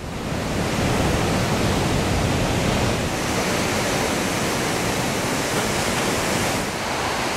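Steady rush of surf breaking on a beach.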